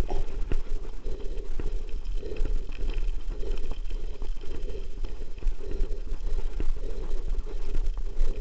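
Mountain bike rolling fast over loose gravel: the tyres crunch and the bike rattles with a dense, irregular clatter of small knocks, over a steady low rumble of wind on the microphone.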